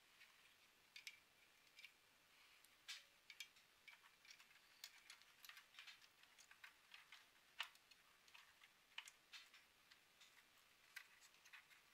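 Faint, irregular clicks and taps of plastic and metal parts inside an open projector chassis being handled by hand during reassembly, as cables and components are fitted.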